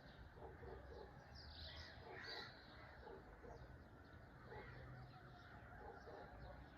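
Faint morning birdsong from several birds: short, repeated lower calls in small groups mixed with brief high chirps.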